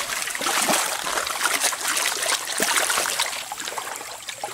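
Shallow water splashing and trickling as a hand reaches into it to pick up an arrowhead, with quick irregular sloshes.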